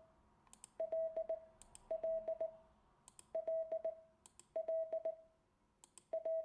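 Morse code letter L (di-dah-di-dit) sent five times on a key as a steady single-pitched beep, with quiet gaps between letters. Sharp clicks from the key are heard as each element starts and stops.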